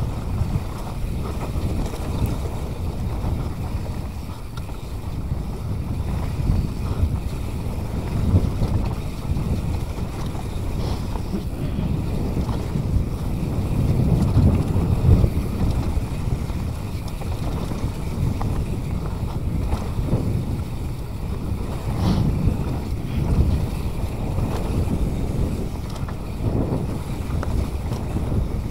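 Wind buffeting an action camera's microphone, mixed with the rumble of a mountain bike rolling fast over a dry dirt trail, with a few sharper knocks over bumps.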